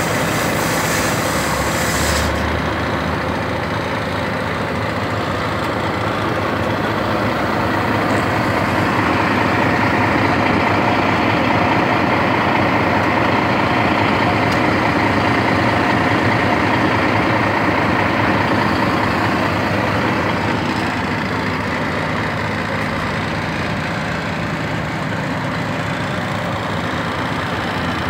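Volvo FH16 truck's 16-litre straight-six diesel idling steadily, heard close from around the chassis. A high hiss over it cuts off about two seconds in.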